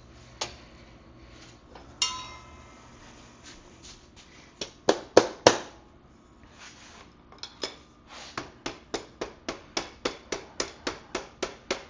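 Hammer blows driving a stuck rear axle out of a 1974 Yamaha MX100 dirt bike: a ringing metal clink, a few hard strikes around the middle, then a steady run of taps about three a second near the end.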